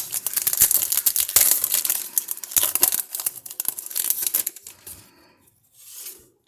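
Foil trading-card pack wrapper being torn open and crinkled: dense crackly rustling for about five seconds, dying away near the end.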